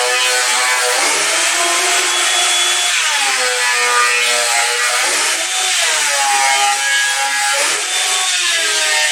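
Thickness planer running and planing boards down to 1 inch, loud and continuous. Its motor pitch dips and recovers several times as the cutterhead takes the load.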